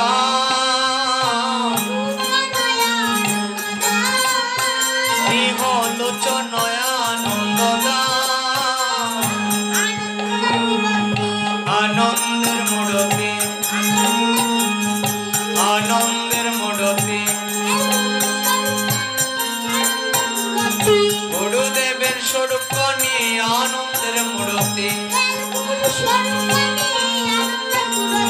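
Bengali kirtan music: a young boy sings a devotional guru-vandana over a steady harmonium drone. A khol barrel drum and hand cymbals keep the rhythm. The singing is clearest in the first nine seconds or so.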